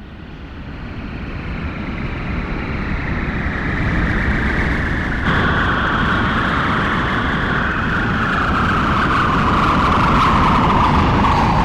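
Science-fiction sound effect: a deep rumble fades in and builds steadily louder, under a whine that slowly falls in pitch.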